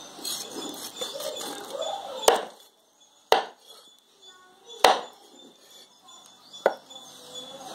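Knife chopping through raw fish onto a cutting board: four sharp knocks spread a second or two apart, with faint handling noise before the first.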